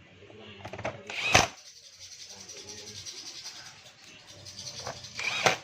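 Tools knocking and scraping on metal parts while a scooter's clutch assembly is tightened back together: one sharp knock about a second in, hissing scraping after it, and another knock near the end.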